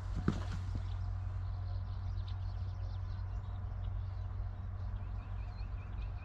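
Small birds chirping over a steady low rumble, with a couple of soft knocks just after the start. Near the end, one bird repeats a short high note about five times a second.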